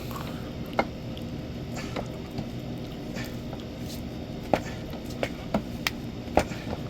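Soapy, wet rubber tire being worked by hand onto an electric unicycle wheel rim: wet squishing, with several sharp clicks and snaps as the tire is forced over the rim, most of them in the second half.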